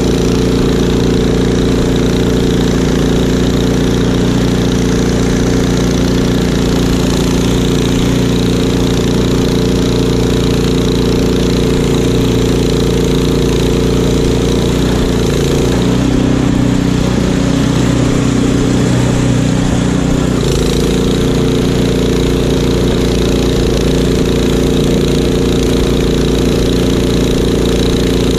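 Craftsman walk-behind snowblower's gas engine running steadily under load while blowing snow. Its note changes for a few seconds about halfway through, then settles back.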